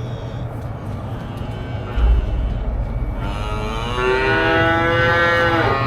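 A calf bawling: one long call that starts about three seconds in, over a steady low machine hum, with a dull thump about two seconds in.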